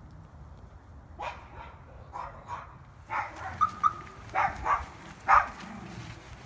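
A dog barking: a string of short barks starting about a second in, coming closer together and louder in the second half.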